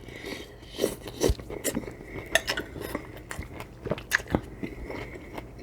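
Close-up eating sounds: cutlery clinking and scraping against a bowl of shrimp cocktail, with biting and chewing in between, as a run of short irregular clicks and knocks.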